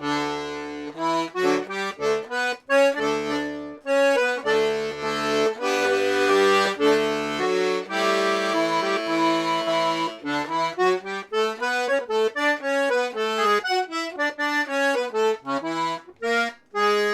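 Serenellini C#/D two-row button accordion, three reeds per note (LMM), playing a lively tune on the treble buttons. Bass and chord notes sound under the melody for roughly the first half. After about ten seconds the basses mostly drop out and the melody runs on alone in quicker notes.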